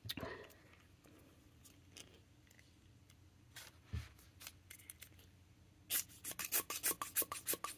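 Faint paper and hand rustles, then about six seconds in a quick run of about a dozen sharp taps as fountain pen ink is spattered onto a paper journal page.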